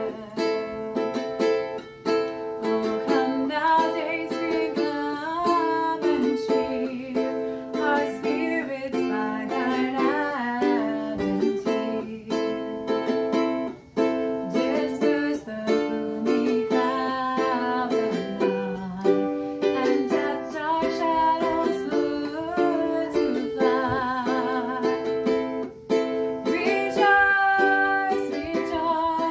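A woman singing, accompanied by a strummed ukulele; her held notes waver with vibrato.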